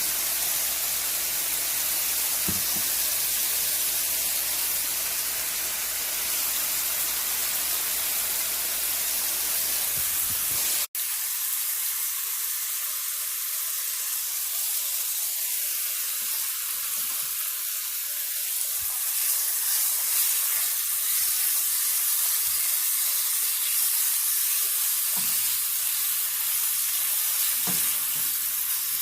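Seasoned chicken sizzling as it fries in a pan: a steady frying hiss that cuts out for an instant about eleven seconds in and then carries on.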